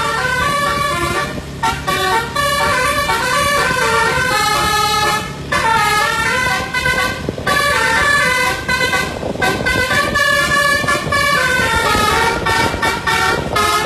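Multi-tone telolet bus horn driven by a DAV horn module, playing a tune of quickly changing notes in several phrases with short breaks, with the bus engine running underneath.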